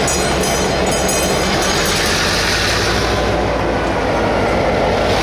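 Taiwan Railway locomotive rolling slowly past at close range, running with a steady low hum over the noise of its wheels on the track.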